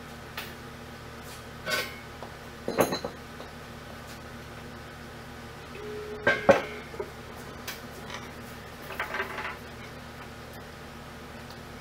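Steel clanks and knocks as a four-post car lift's steel post is let down on a hydraulic scissor-lift cart and comes to rest on a concrete floor. The loudest is a double knock with a short ring about six and a half seconds in, followed later by a few lighter metallic rattles as the cart is moved.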